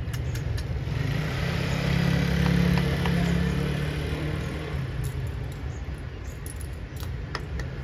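A motor vehicle's engine running close by, swelling to its loudest about two to three seconds in and then fading away. A few sharp ticks follow near the end.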